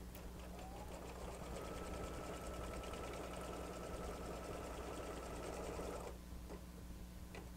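Embroidery machine stitching a seam in the hoop: its motor whine rises to a steady pitch over the first second or so, runs with a fast, even needle rhythm, and stops about six seconds in. Two faint clicks follow near the end.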